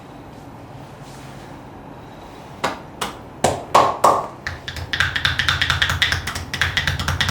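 Massage percussion: open hands slapping and chopping a person's back. A few separate slaps come first, then from about five seconds in a fast, steady run of strikes, several a second.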